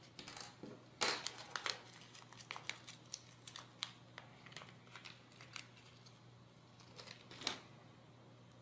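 A small plastic bag of hardware crackling as fingers handle it and pick nuts out of it: a run of short crackles and clicks, with a louder one about seven and a half seconds in.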